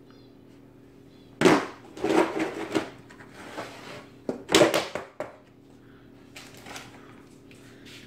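Lid of a plastic biscuit tin being prised off and handled: a burst of loud clattering and scraping that starts about one and a half seconds in and runs on for about four seconds, with the loudest knocks near the start and about four and a half seconds in. A few lighter knocks follow.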